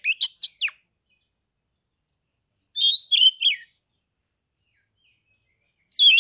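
Oriental magpie-robin singing in short, loud phrases of sharp whistled notes and quick falling sweeps, with pauses between: one phrase ending just after the start, another about three seconds in, and a third beginning near the end.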